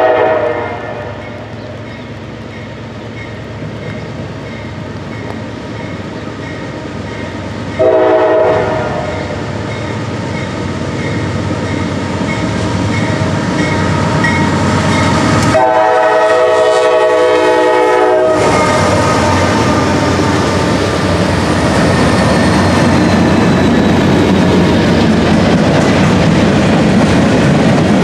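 Norfolk Southern GE AC44C6M diesel locomotive sounding its multi-chime air horn: the tail of one blast, a short blast about a third of the way in, and a longer blast a little past the middle, with a bell ringing steadily under the first half. The locomotives then pass close by, running loud, followed by freight cars clacking over the rails.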